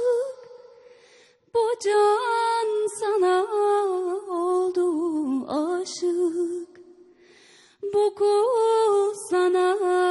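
A woman singing a Turkish folk song (türkü) unaccompanied. She sings long, ornamented phrases with short pauses between them, about a second in and again about two-thirds of the way through.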